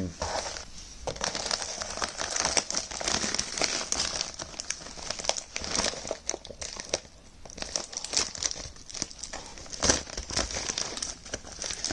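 Packaging being handled and opened by hand: crinkling and rustling of a taped shipping parcel and its wrapping, with irregular crackles and a brief lull about seven seconds in.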